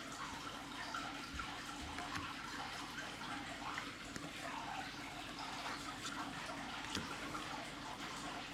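Faint rustling of Magic: The Gathering cards being flipped through by hand, with a few soft clicks, over a steady background hiss.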